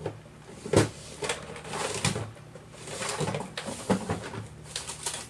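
Small hard parts and tools being handled on a workbench: a series of light clicks and knocks about a second apart, with rustling between.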